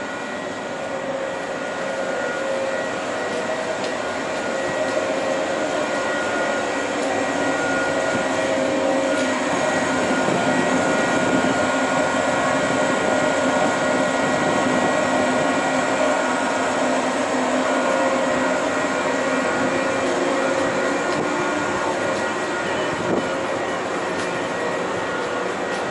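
Maroon JR West 103 series electric train moving along the platform track: a steady run of motor and wheel noise with a few steady whining tones. It grows louder toward the middle and eases off near the end.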